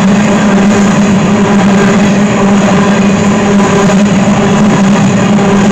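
BNSF covered hopper cars rolling past close by: a loud, steady rumble of steel wheels on rail, with a constant low hum underneath.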